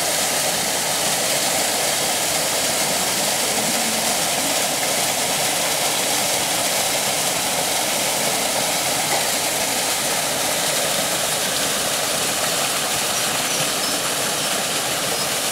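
Small waterfall spilling from a stone wall into a river pool: a steady, loud rush of splashing water.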